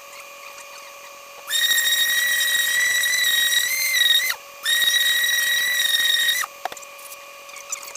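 Small power tool spinning a 220-grit sanding disc against a plastic headlight lens during wet sanding: a high-pitched whine in two runs of a few seconds, stopping briefly between them, starting about a second and a half in and stopping near the end.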